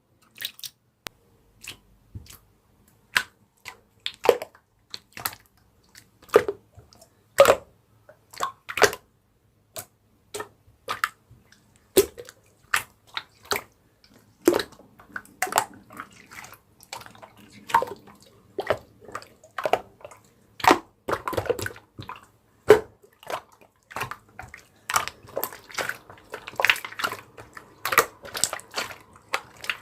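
Irregular series of sharp clicks and taps, sparse at first and coming thicker and faster from about halfway through.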